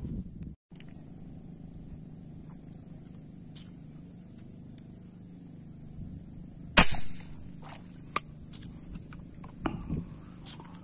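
Homemade rubber-powered speargun firing once about seven seconds in: a single sharp snap as the bands release the spear into the water, followed by a few light clicks.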